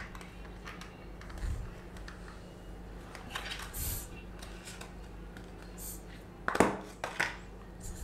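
Light handling noises as a USB-to-Ethernet adapter is lifted out of a clear plastic packaging tray: soft plastic rustles and crinkles, then two sharp clicks about half a second apart near the end.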